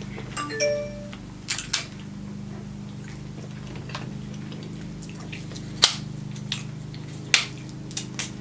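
Snow crab leg shells being snapped and cracked apart by hand: a handful of sharp cracks, a pair about a second and a half in and a cluster in the second half, the loudest about six seconds in. A low steady hum runs underneath.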